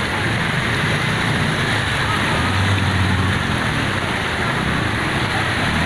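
Floodwater rushing and churning through a street, a steady loud rush, with a vehicle engine's low hum underneath.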